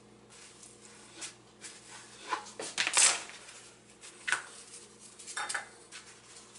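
Kitchen knife cutting warm pita bread on a plastic cutting board: scattered taps and scrapes of the blade against the board, the loudest cluster about three seconds in.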